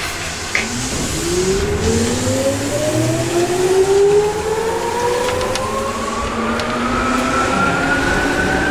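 Tokyu 8500 series electric train pulling away: the traction motors' loud whine climbs steadily in pitch as it accelerates, several tones rising together over the rumble of the car. A short click about half a second in.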